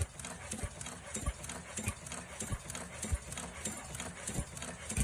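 Automatic mask ear-loop welding machine running, with a steady hum and a regular mechanical knock about every 0.6 seconds.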